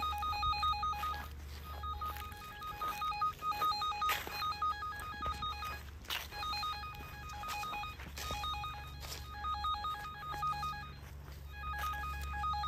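Handheld underground wire locator receiver beeping rapidly, about five short beeps a second, breaking off briefly several times and starting again. The beeping signals that the receiver is over the buried electrical cable carrying the transmitter's radio signal.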